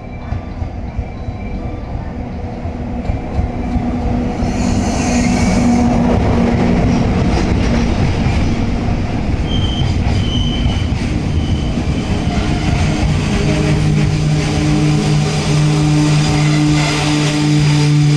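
Class EF64 electric locomotive passing, followed by its train of loaded container wagons rolling by, growing louder over the first five seconds. Heavy wheel and rail noise follows. From about thirteen seconds in, a steady low-pitched tone from the brakes sets in as the train slows to a stop at the station.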